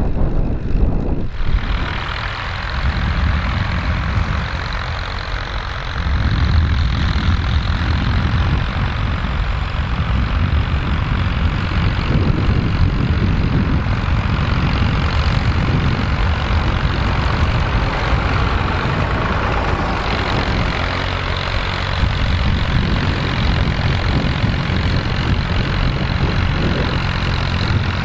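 Massey Ferguson tractor engine running steadily under load while ploughing. It gets louder about six seconds in.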